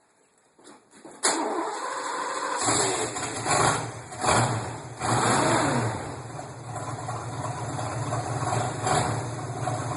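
1982 Mercury Capri RS's 5.0 V8 cranked and started with its exhaust open right after the catalytic converters, the muffler disconnected. About a second in the starter engages, the engine catches, is revved a few times, then settles to a steady, loud idle.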